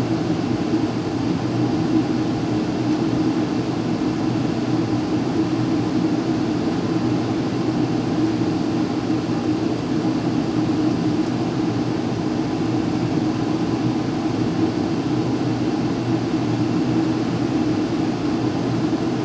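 Residential gas furnace running: a steady rush of air with a low hum, and no knocks or bangs.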